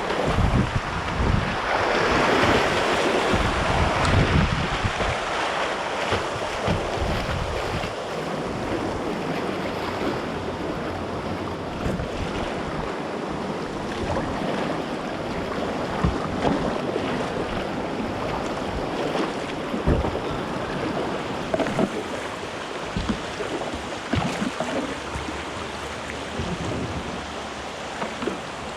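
Class II whitewater rapids rushing steadily, with wind buffeting the microphone; loudest in the first few seconds, with a few brief sharp hits later on.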